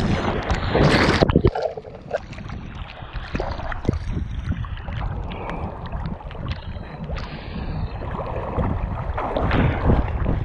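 Water splashing and sloshing right at a camera mounted on a swimming cattle dog–ridgeback cross. The splashing is heavy in the first second and a half as the dog plunges in. It then drops suddenly to quieter, steady sloshing with small splashes as the dog swims, and swells again near the end.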